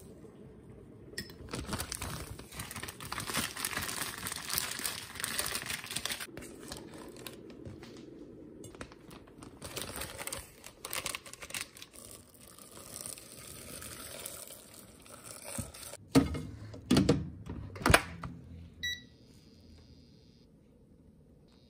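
Plastic zipper bag crinkling and rustling as chicken breast is kneaded in it with salt and sugar, then handled into a rice cooker's pot. Near the end, a few heavy knocks as the rice cooker is closed, then the cooker's electronic beeps.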